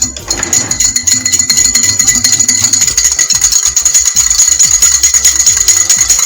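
Wire whisk beating rapidly against a small bowl, a fast steady run of clinking strokes as olive oil is whisked into a vinaigrette, over background music.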